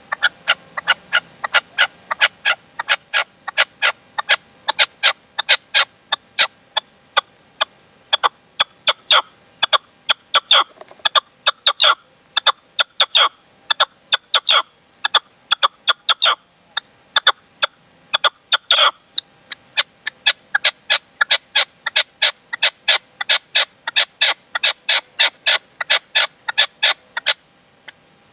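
A caged male red-legged partridge, kept as a hunting decoy, calling: a long run of short, sharp notes at about two to three a second, with a couple of brief pauses, the loudest notes near the middle.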